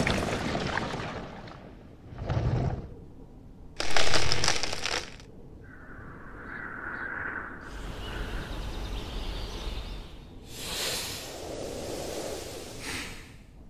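Cartoon sound effects: a short burst about two seconds in and a louder sudden burst about four seconds in, then a brief hissing tone and a steady rushing noise that swells near the end.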